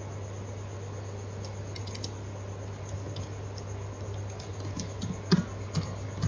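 Computer keyboard keys clicking as text is typed: scattered keystrokes, a few louder ones about five seconds in, over a steady low hum.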